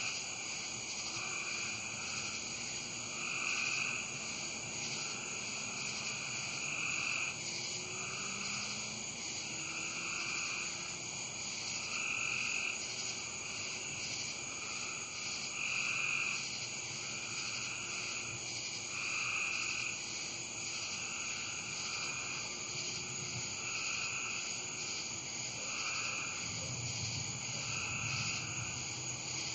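A chorus of frogs calling over and over, a call every second or two, over a steady high hiss; a low rumble swells near the end.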